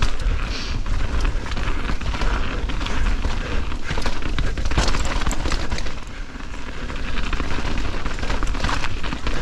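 Mountain bike riding fast down a rough trail: wind buffets the camera mic with a constant low rumble, while the tyres hitting roots and rocks and the chain and frame rattling make many sharp knocks.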